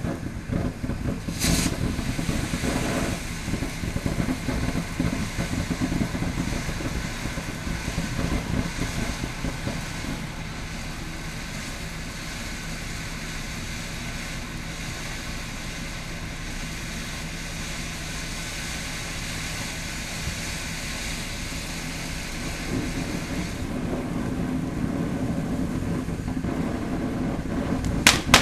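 Ground fountain firework spraying sparks with a steady rushing hiss, with a single sharp crack about a second and a half in. Near the end, loud crackling bangs break out.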